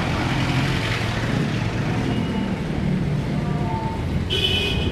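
Street traffic noise: a steady rumble of cars and motorbikes on a busy road, with a short high-pitched tone near the end.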